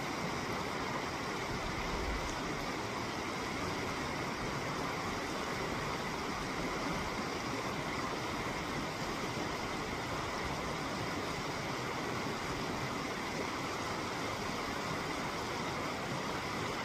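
Shallow river running over a stony bed: a steady, even rush of water.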